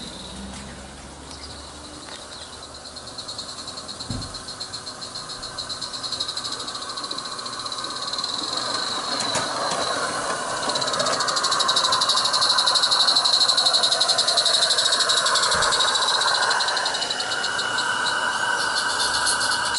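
A Roundhouse live steam garden-railway locomotive chuffing quickly as it approaches and runs past with its train of wagons. The rapid, even exhaust beats and steam hiss grow steadily louder, are loudest as the engine passes, then ease slightly as the wagons roll by.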